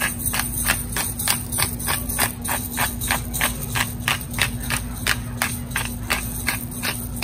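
Hand-twisted pepper grinder grinding black peppercorns, a rhythmic crunching rasp at about three strokes a second.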